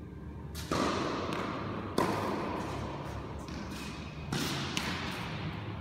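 Tennis ball struck by racket and bouncing on a hard court: four sharp knocks, about a second in, at two seconds and twice close together near the end, the second the loudest. Each rings out in the long echo of a large hall.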